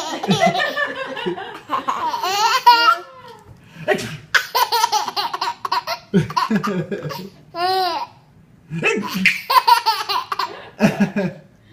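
Baby laughing in repeated high-pitched belly-laugh bouts with short pauses between them, set off by an adult's fake sneeze.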